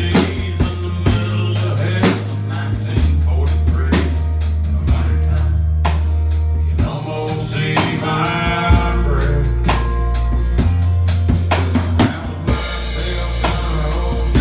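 Drum kit played steadily, bass drum and snare strikes with cymbals, along with a country song's instrumental passage over a sustained bass line.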